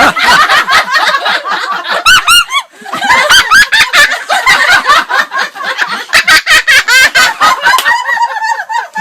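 A parrot imitating human laughter: rapid, repeated laugh-like cackles throughout, with a short burst of high squeaky notes about two seconds in.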